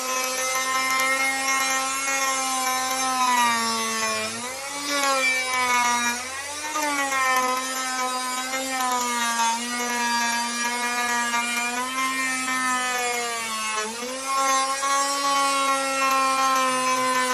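Electric plunge router running at speed while its bit cuts the edge of a wooden door frame: a steady high motor whine with the hiss of the cut. The pitch sags and recovers a few seconds in and again near the end, as the bit takes a heavier bite.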